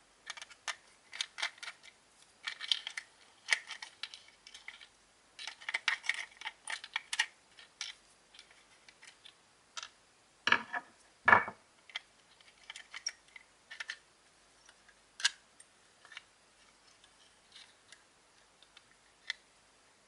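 Small hand-handling sounds as a plastic toy walkie-talkie case is opened and its circuit board lifted out: scattered clicks, taps and light rattles, with two louder knocks about halfway through.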